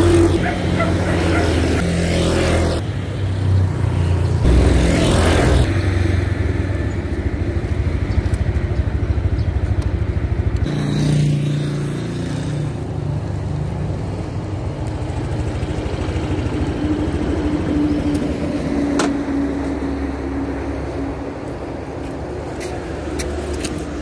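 Small motorcycle and scooter engines running as bikes ride past on a road, with two brief rushing pass-bys in the first few seconds.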